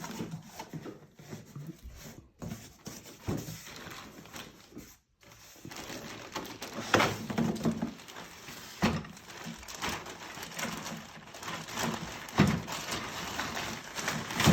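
Packaging being opened and parts of a boxed bicycle work stand being handled: rustling and crinkling with scattered knocks and clicks throughout.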